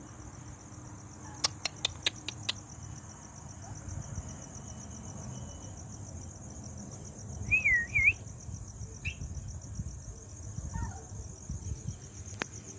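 Crickets chirping steadily in a high, pulsing chorus. Over it come a few sharp clicks about a second and a half in, and a short, wavering high squeak near the middle.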